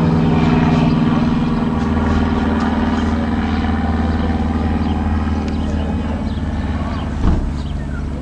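A small high-wing propeller plane's engine running steadily as it flies overhead, slowly growing fainter. A short knock comes about seven seconds in.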